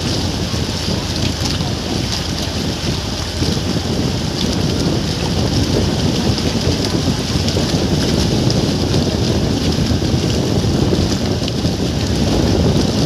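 Steady rush of wind buffeting the microphone and water noise from a moving boat.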